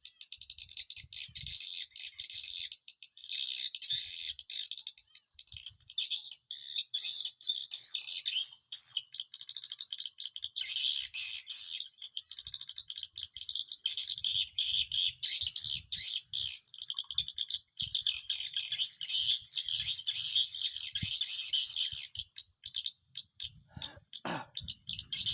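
Swiftlets chirping: a dense, unbroken chatter of rapid high twittering calls.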